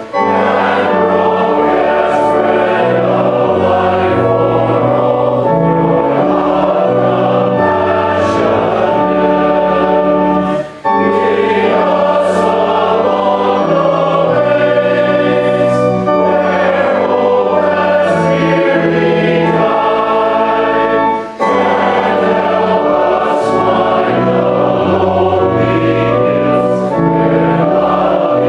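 Many voices singing a hymn together in chords, with short breaks between phrases about 11 and 21 seconds in.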